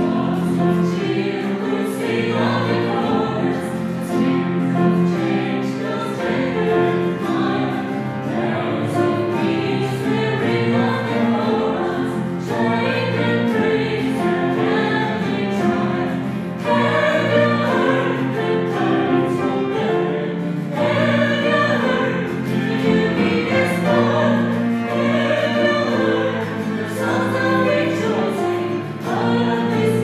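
A vocal ensemble singing a Christmas song in several voices over a steady instrumental accompaniment, with long held notes.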